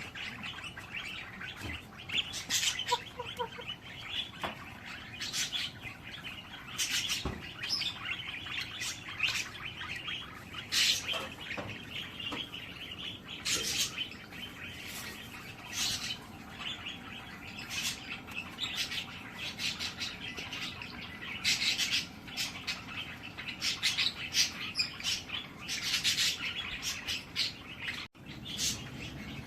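Birds chirping: many short, high chirps at irregular intervals, a second or so apart, over steady background noise.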